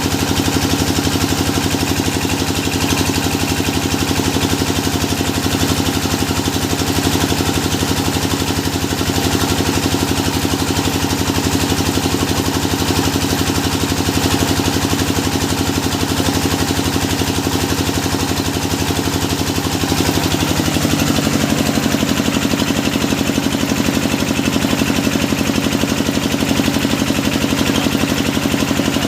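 The engine of a hydraulic deep-well drilling machine running steadily. About 20 seconds in, its pitch drops slightly and then holds at the lower speed.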